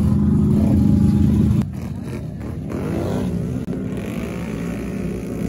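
ATV engines running hard in mud. A loud, steady engine note stops abruptly about one and a half seconds in, and then another quad's engine revs with a rising pitch.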